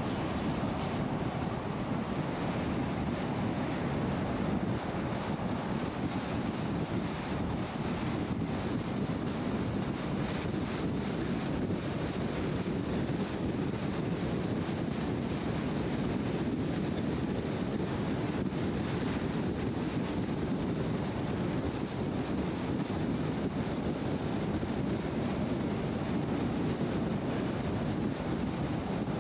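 Steady road and wind noise of a vehicle cruising at highway speed: an even rushing hiss over a low tyre rumble.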